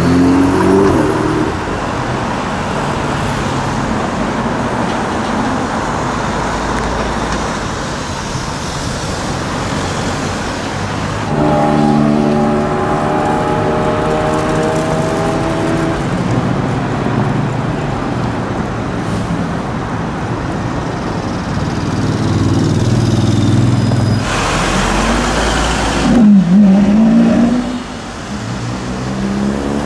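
Supercar engines, Ferrari V8s among them, pulling away through city traffic in a string of short clips. The engine notes rise under acceleration over a steady wash of traffic noise, with a quick blip of revs near the end.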